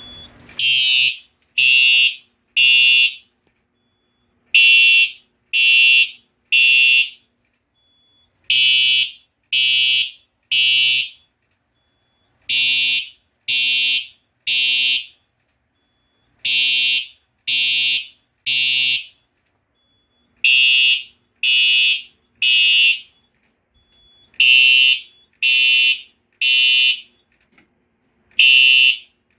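Simplex 4906-9127 TrueAlert horn strobe sounding the temporal-three evacuation pattern: three loud horn blasts, a pause, then three more, repeating every four seconds. This is the fire alarm system in alarm after a smoke detector was tripped. The horns start about a second in.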